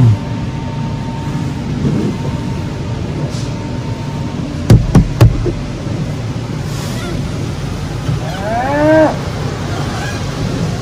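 A low steady rumble, broken about halfway by three sharp knocks in quick succession, then near the end a drawn-out moaning call that rises and falls in pitch, like a spooky monster moan.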